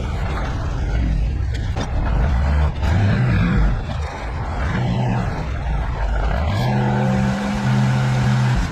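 A motor vehicle engine running loud with a heavy low rumble. About six and a half seconds in it settles into a steady low hum.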